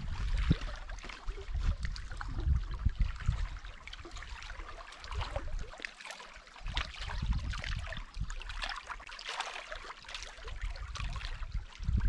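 Small wind-driven waves lapping and splashing irregularly against shoreline rocks, with gusts of wind buffeting the microphone.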